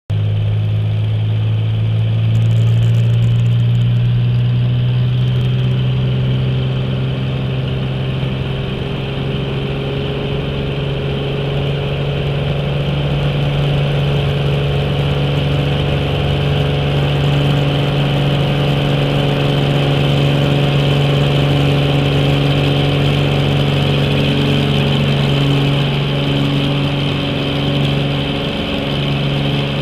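Light aircraft's engine and propeller running at high power on the takeoff run, heard from inside the cabin. It is a steady, loud drone that climbs a little in pitch and level about two seconds in, then holds.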